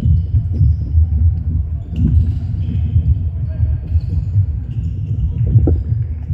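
Sports-hall noise of a netball game: a steady jumble of thuds from players running on the wooden court, with a few short high squeaks of shoes, echoing in the large hall.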